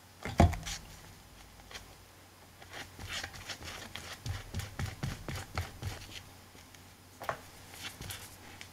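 A single sharp knock about half a second in, a plastic glue bottle being put down on the craft table, then a flat paintbrush scratching and dabbing glue onto fabric over a cardboard journal cover in a quick run of short strokes, with a few more strokes near the end.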